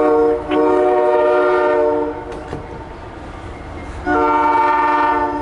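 Diesel locomotive horn on a CSX loaded coal train sounding a multi-note chord: two long blasts back to back, then after a pause of about two seconds another long blast. A low rumble from the train runs underneath.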